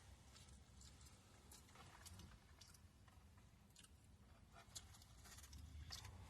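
Faint chewing and mouth sounds of someone eating a deep-fried, cheese-filled potato ball, with irregular soft smacks and clicks.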